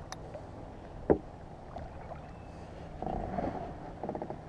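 Handling noise of fishing gear in a kayak: a single sharp knock about a second in, the loudest sound, then a baitcasting reel being cranked, giving a quick run of clicks near the end.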